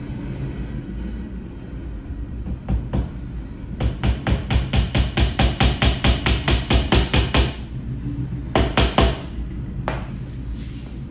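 Hammer tapping small nails through a bookcase's cardboard back panel into the wooden frame. A couple of taps come first, then a fast even run of light taps, about six a second, then three more taps near the end.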